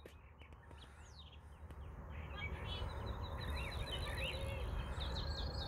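Several birds chirping and singing, with a fast trill of repeated high notes starting a couple of seconds in, over a steady low rumble.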